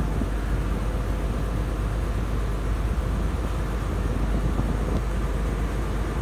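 River ferry's engine running steadily under way, a constant low rumble.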